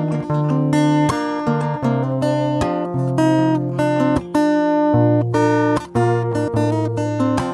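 Background music: an acoustic guitar strumming chords, the strokes coming in quick succession as the chords change.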